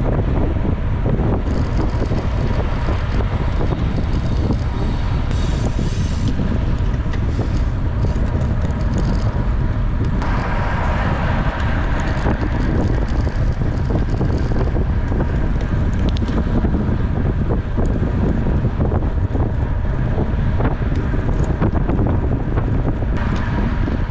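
Wind buffeting the microphone of a camera riding along on a road bicycle, a steady low rumble with the hiss of tyres on the road. About ten seconds in the hiss grows brighter for a few seconds.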